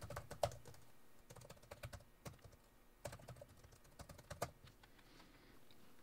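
Computer keyboard typing: faint, irregular key clicks as a short line of text is typed, ending a little after four seconds in.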